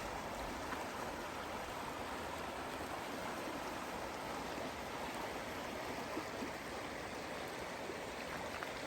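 A stream running, a steady even rush of flowing water.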